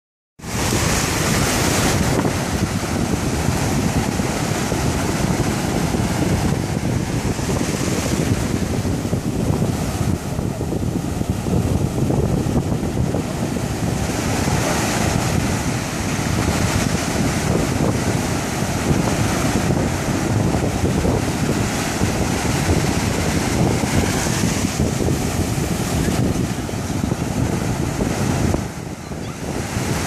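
Breaking surf washing and hissing in the shallows, with wind buffeting the microphone.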